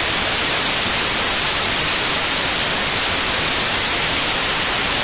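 Loud, steady hiss of analog TV static (white noise), used as a transition sound effect.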